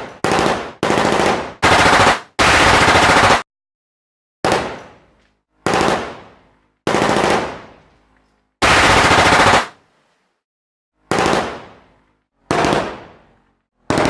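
Machine gun firing a series of about a dozen short bursts of rapid shots. The bursts come close together in the first three seconds, the longest lasting about a second, and then with pauses of a second or more. Each burst trails off as it dies away.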